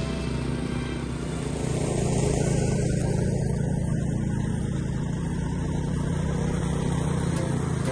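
Walk-behind gasoline lawn mower engine running steadily while cutting grass.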